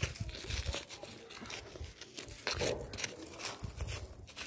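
A wooden digging stick scraping and crunching into dry, stony garden soil, loosening the earth around a radish root, in irregular scrapes and crackles.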